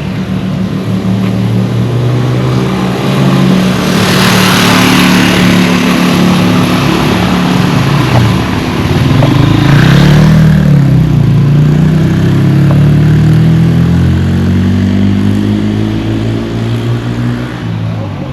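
A large engine running close by, loud and steady, its pitch dipping and rising about ten seconds in, with spells of hiss about four and ten seconds in.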